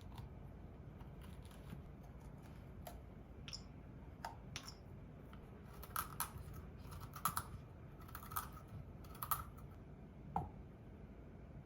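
Scattered light clicks and taps of small hard objects, coming in quick clusters about six to nine and a half seconds in, over a low steady room hum.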